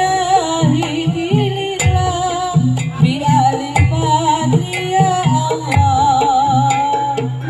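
Jaranan accompaniment music: low drum beats under a wavering, vibrato-laden melody line.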